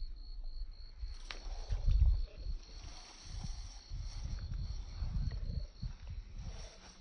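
Insects chirping: a fast, even pulsing chirp that stops about a second in, with a steadier high buzz carrying on. Irregular low rumbles sound under it, loudest about two seconds in.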